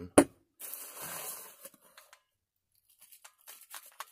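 Clear plastic wrapping crinkling and tearing as a flashlight is handled out of its cardboard box, opening with one sharp loud knock. About a second of rustling tear follows, then a brief pause, then a run of small crackles and clicks near the end.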